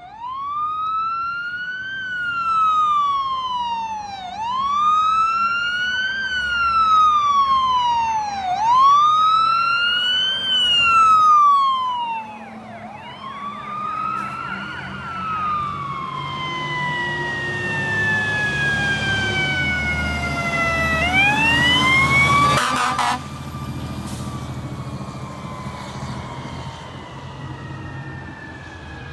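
Fire truck sirens wailing, rising and falling about every four seconds, then slowing into longer falling sweeps, over the low running of the trucks' diesel engines. A short burst of air horn blasts sounds about two-thirds of the way through, as the siren winds up again and then falls away.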